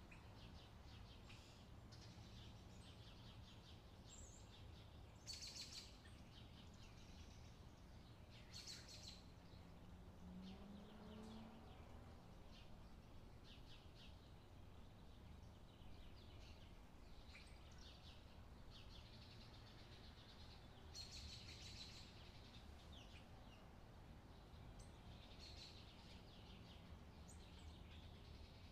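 Near silence: faint room tone with a low hum, and faint high-pitched sounds every few seconds.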